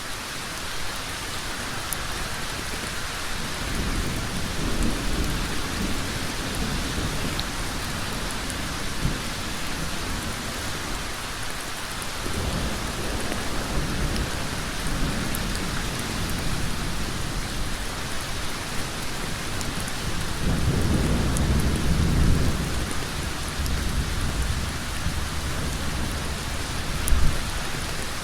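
Heavy rain falling on a road: a steady, dense hiss of drops. Deep low rumbles swell up and fade three times, at about four, twelve and twenty seconds in.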